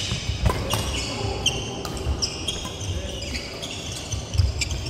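Badminton doubles rally on a wooden sports hall floor: repeated short, high squeaks of court shoes, sharp racket strikes on the shuttlecock and the thud of footfalls.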